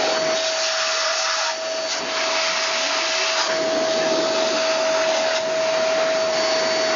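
Handheld electric air duster blowing dust out of a desktop computer case: a steady high motor whine over a loud rush of air, the air noise shifting a little as the nozzle is moved around.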